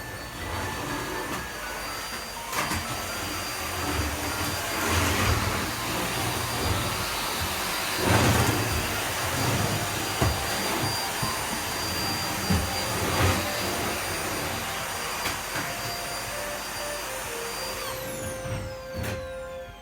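Household vacuum cleaner running steadily with a high motor whine and a few bumps and knocks. Near the end it is switched off and the whine falls away.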